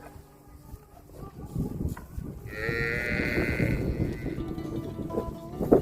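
Cattle mooing: after a quiet start, one long moo begins about two and a half seconds in and trails off before the end, over low rumbling sound.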